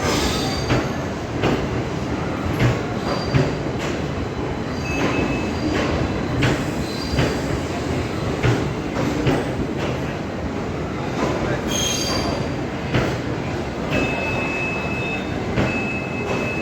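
Porbandar–Muzaffarpur Express train running on the rails: a steady rumble broken by irregular wheel knocks. There are short high squeals, and a thin, steady wheel squeal sets in near the end.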